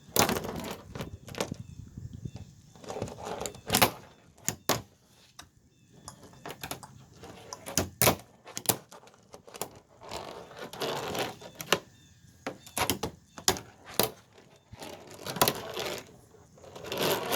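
Fingerboard (Tech Deck) tapping and rolling on a plastic trash can lid: a string of sharp clacks as the board's tail and wheels hit the plastic, with short stretches of wheels rolling in between.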